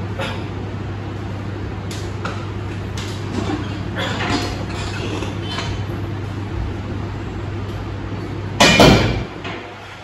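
Barbell bench press set in a gym: light knocks of the bar and equipment over a steady low hum. There is one loud, short sound about nine seconds in.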